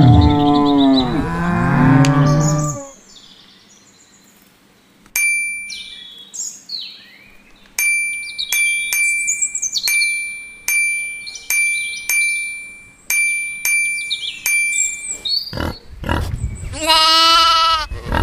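A cow mooing loudly in one long call, then birds chirping over a small bell ringing at an even pace, about one stroke every 0.7 s. Near the end comes a higher, wavering animal bleat.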